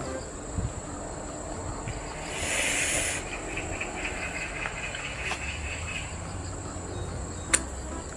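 Steady high buzzing of insects in the background. A brief hissing rush comes about two and a half seconds in, and a single sharp click comes near the end.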